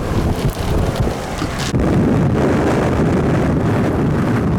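Strong wind buffeting the microphone, a loud rumbling rush of noise close to a tornado. About two seconds in, the high hiss drops away and the low rumble carries on.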